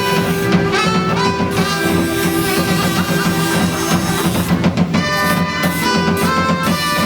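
Loud music with a drum kit keeping a steady beat, guitar, and held instrument notes.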